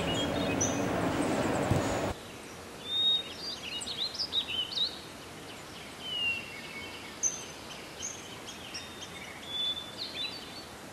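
Several small birds chirping, with many short whistled notes and quick slides in pitch. A steady rushing background noise under them cuts off sharply about two seconds in, leaving the birdsong over a quieter background.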